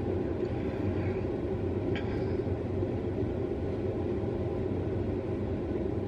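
Steady low background rumble with a faint low hum, and a small click about two seconds in.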